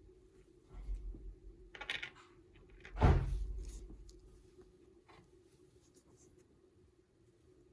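Handling noises from workbench work: scraping and rustling, then a single heavy thump about three seconds in, with a faint steady hum underneath.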